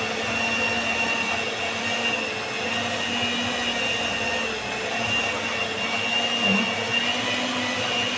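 Electric stand mixer with a rotating bowl running steadily, its motor giving a constant high whine, while it creams sugar and margarine for cake batter.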